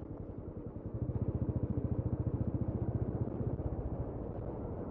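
Motorcycle engine running steadily while riding, its rapid firing pulses getting louder about a second in.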